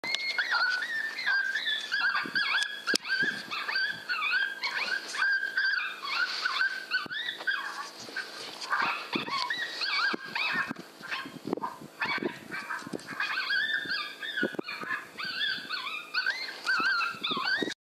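Coyote pup distress call played from an electronic predator caller: a continuous string of rapid high-pitched yelps and whimpers that starts abruptly and cuts off sharply near the end.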